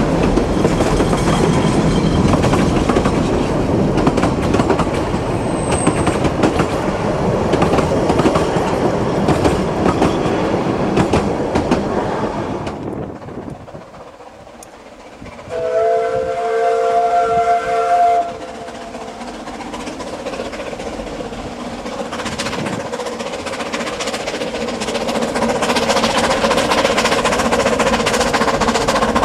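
Narrow-gauge train carriages rolling past close by, wheels clicking and rattling over the rail joints. After a sudden drop about 13 s in, a steam whistle sounds one chord for about two and a half seconds, then a narrow-gauge steam locomotive and its train draw nearer, growing steadily louder.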